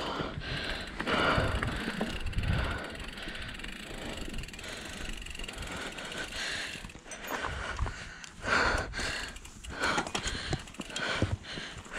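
Mountain bike being ridden on a dirt trail, with uneven rattling and clicking from the bike.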